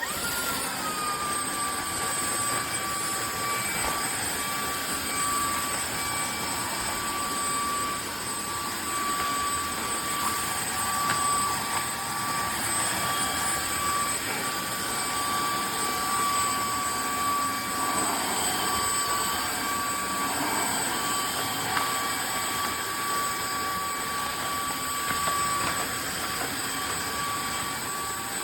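Tineco iFLOOR cordless wet-dry floor vacuum switching on suddenly. Its whine settles to a steady pitch within the first second, and it then runs steadily: a high whine over an even rush of air.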